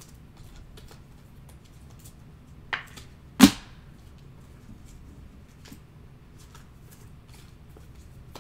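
Trading cards being handled on a tabletop: faint scattered clicks of cards being sorted, with two sharp knocks about half a second apart roughly three seconds in, the second the loudest.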